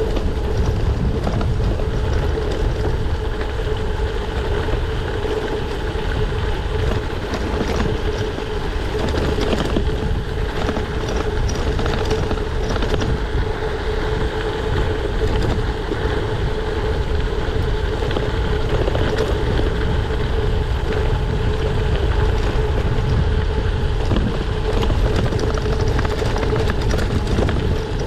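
Gravel bike rolling over a gravel road: steady tyre rumble and rattle with wind buffeting the camera microphone, and a constant hum running under it.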